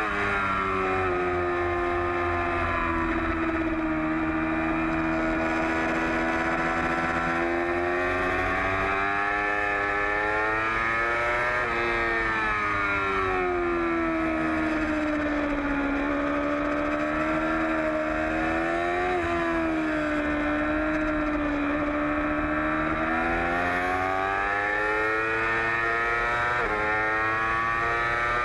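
Yamaha R6 sport bike's inline-four engine at racing revs, heard onboard: the engine note rises and falls through the corners, with sudden drops in pitch as it shifts up partway through and twice near the end.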